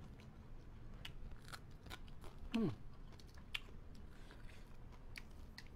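Close-up eating sounds as food is torn by hand and chewed: scattered crisp clicks and small crunches. Halfway through, a short hum from the eater falls in pitch and is the loudest sound.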